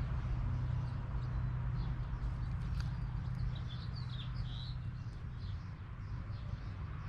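A few short, high bird chirps in the middle, over a steady low rumble.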